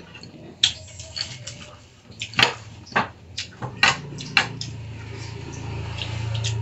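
Spoon and utensils clinking against ceramic bowls and plates: a handful of sharp clinks, with a low hum growing louder near the end.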